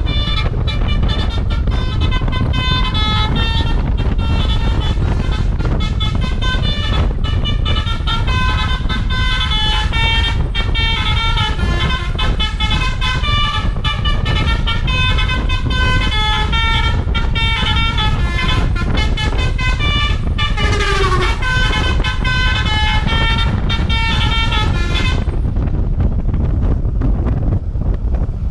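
Basuri V3 telolet bus horn playing a quick melody of short, rapidly changing horn notes, with one falling swoop about two-thirds through, over a steady low rumble. The horn notes stop near the end, leaving only the rumble.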